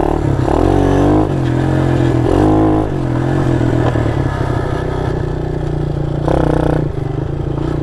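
Mini motorcycle engine running under way, revving up and easing off a few times: about half a second in, again around two to three seconds, and briefly near the end.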